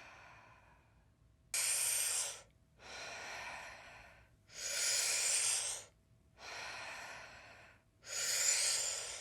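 A woman's deep, rhythmic Wim Hof-style power breathing, heard close to the microphone: about three cycles, one every three seconds or so. Each is a full, forceful breath in, followed by a softer breath out that trails off.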